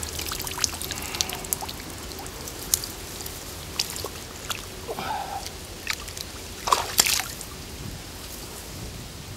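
Water trickling and dripping with small scattered splashes as hands work in shallow, weedy water releasing a pike; a few louder splashes come around seven seconds in.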